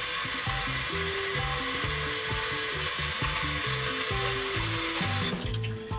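Kitchen tap running into a steel bowl of water while a fish is rinsed and rubbed clean under the stream; the water cuts off a little after five seconds in. Background music plays underneath.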